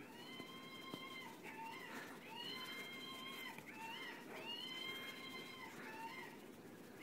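Electronic voice box in a plush monkey toy playing a looped squealing call, faint: a long call about every two seconds with short chirps between.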